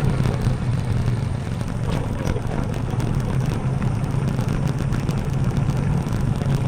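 TVS Apache RTR 4V single-cylinder motorcycle engine running steadily while being ridden, a constant low hum under road noise.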